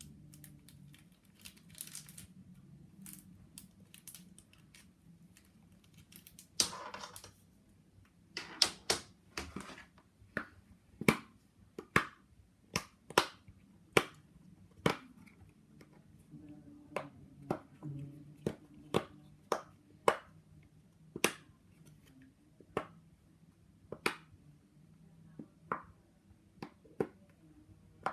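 Plastic fidget toys clicked and snapped close to the microphone: sharp single clicks roughly every half second to a second, with a brief scratchy rattle about seven seconds in.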